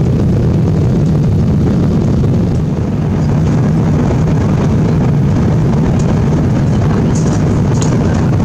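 Steady low rumble of cabin noise inside an Airbus A350 airliner in flight at altitude: engine and airflow noise heard from a window seat.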